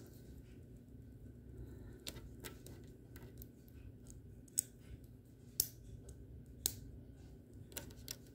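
Small plastic building pieces being handled and pressed together: scattered light clicks, with three sharper snaps about a second apart around the middle.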